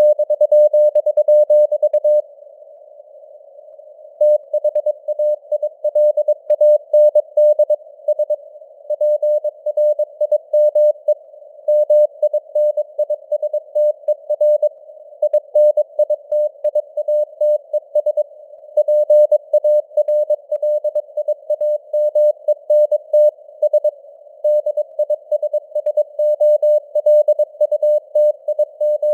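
Morse code sent at 22 words per minute as a keyed mid-pitched beep over a narrow band of simulated radio hiss, with the signal's strength fading up and down (QSB). A pause of about two seconds comes just after two seconds in, then the keying resumes.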